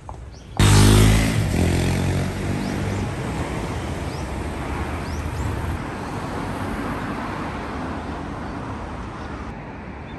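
Road traffic at a city street: a car passes close by just after the start, its engine loudest at first and fading over a couple of seconds, then a steady traffic hum.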